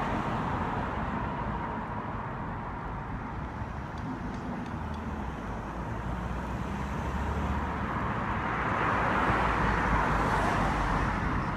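Road traffic: cars driving past with a steady hiss of tyres and engines, swelling louder near the end as a vehicle passes close.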